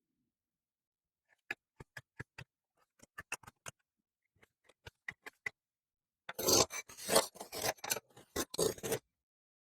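Kinetic sand being cut with a blade: a string of separate short, sharp ticks as it slices in, then about six seconds in a louder, dense scraping run of strokes lasting about three seconds.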